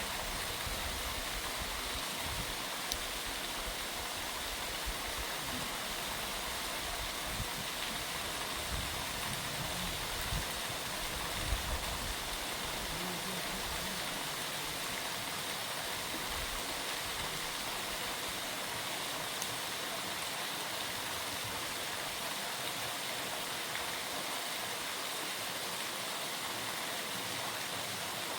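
Steady rush of a waterfall's falling water, even and unbroken, with a few faint clicks and knocks in the first half.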